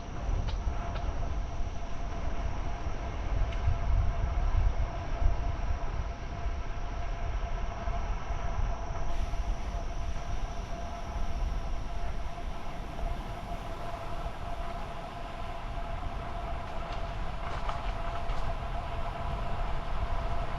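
Wind buffeting the microphone in a heavy, uneven rumble over a steady road hum with a few constant whining tones, as from a camera on a moving road bike.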